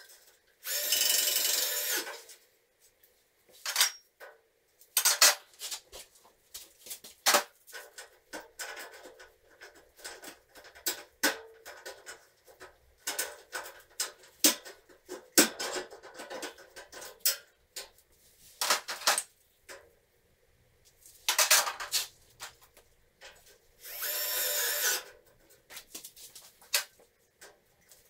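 Hand work on galvanized steel drywall studs and tracks: scattered clicks, knocks and scraping of metal, broken by three loud harsh bursts of about a second each, one near the start and two about three-quarters of the way through.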